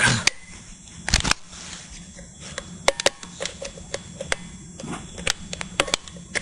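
Irregular small clicks, taps and scrapes of fingers working at a clock radio's plastic battery compartment, trying to free a lithium coin-cell battery stuck in its holder. There is a louder double knock about a second in.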